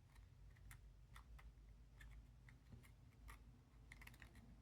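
Faint, irregular small clicks and taps of puzzle-box pieces being handled and set in place, with a quick cluster of clicks near the end.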